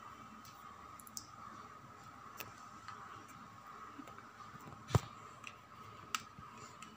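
Handling noise from a hand-held phone camera: a few light clicks, a sharp click about five seconds in and another about a second later, over a faint steady hum.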